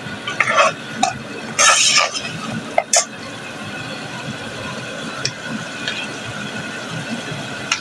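A steel spoon scraping and clinking against an aluminium pot as chicken curry is stirred, in several sharp strokes over the first three seconds. After that the curry keeps up a steady hiss as it fries, with a couple of light clicks.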